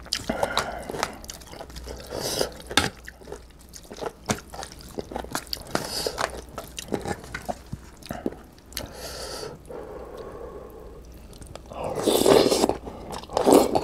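Wooden spoon stirring ramen noodles and rice through broth in a foil bowl: scattered clicks and wet squelching. About twelve seconds in comes a louder slurp of noodles, followed by chewing.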